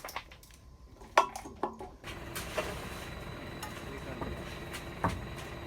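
Metal hand tools clinking sharply against a container a little over a second in, then steady scraping and stirring with light knocks, and one more sharp clink near the end.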